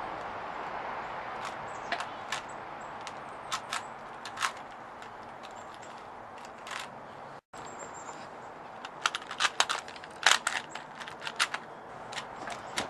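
Rubik's Cube being twisted: a run of sharp plastic clicks, sparse at first, then coming in quick clusters in the second half.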